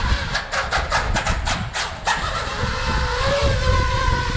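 Small FPV quadcopter's brushless motors spinning up. A quick run of sharp clicks comes first; from about two seconds in, a steady whine of several tones takes over as the quad lifts off.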